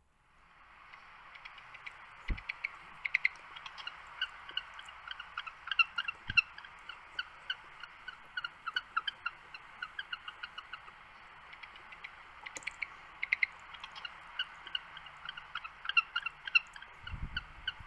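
A dense chorus of short, high chirping animal calls, several a second, over a steady hiss. A few dull low thumps fall in among them.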